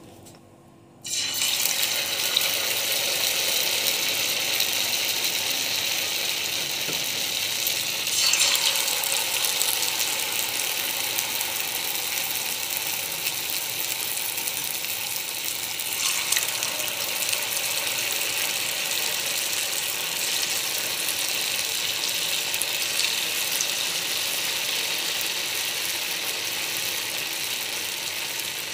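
Potato samosa rolls deep-frying in hot oil in a frying pan: the oil starts sizzling suddenly about a second in as the rolls go in, then keeps up a steady crackling fry. It briefly gets louder twice, at about eight and sixteen seconds.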